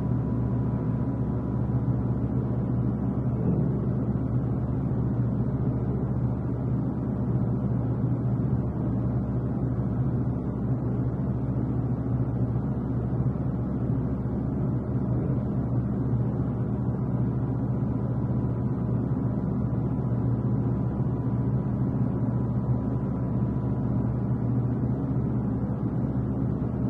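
Dark ambient drone music: a steady low rumble with a faint, thin high tone held above it.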